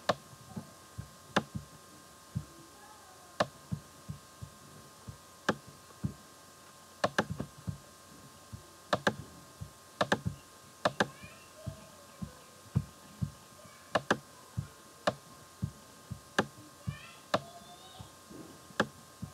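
Computer mouse clicking: sharp single and paired clicks at an irregular pace, about one or two a second, over a faint steady electrical hum.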